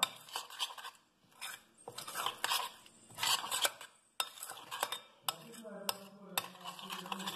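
Metal spoon stirring and scraping through mashed boiled pumpkin sauce in a large metal bowl, with irregular clinks of spoon against bowl.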